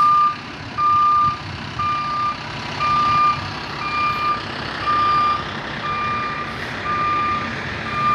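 Reversing alarm on a vegetable-oil tanker truck, beeping evenly about once a second over the steady noise of the truck running.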